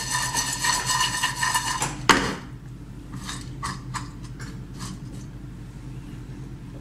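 Nuts being stirred with a utensil in a dry frying pan: a dense scraping rattle for about two seconds, then one sharp knock, then a few lighter clicks over a low steady hum.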